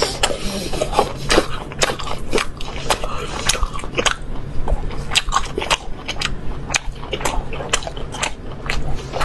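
Close-miked chewing of grilled bone-in beef: irregular wet smacks and crackly bites, several a second.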